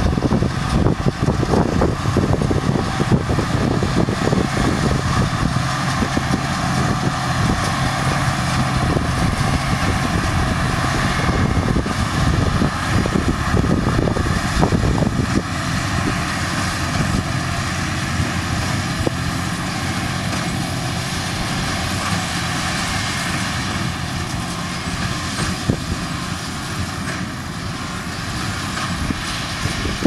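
Fendt 942 Vario tractor's six-cylinder diesel engine running steadily under load as it pulls a Massey Ferguson 2290 large square baler through straw windrows, the working baler adding scattered knocks. A little quieter near the end.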